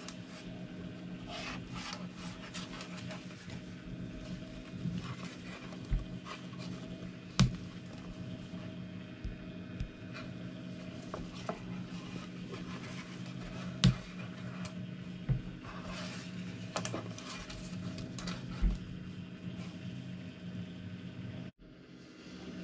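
Handling noise of fabric bras being turned over and rearranged on a hard board: soft rubbing and rustling, with a few short sharp knocks. A steady low hum runs underneath, and the sound drops out briefly near the end.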